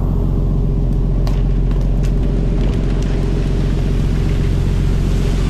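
A fishing boat's engine running with a steady low drone under the hiss of the water sprayers spraying the sea beside the hull, with a couple of sharp clicks about one and two seconds in.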